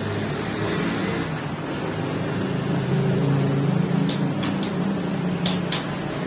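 A low, wavering motor-like drone, with a few sharp metal clicks in the second half, in two close pairs, as a hand tool knocks among the spokes of a spoked motorcycle wheel.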